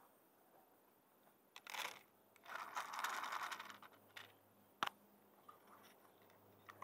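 A tabby cat eating dry kibble from a plastic tray: irregular crunching bursts, loudest about three seconds in, with a few sharp clicks of kibble and plastic.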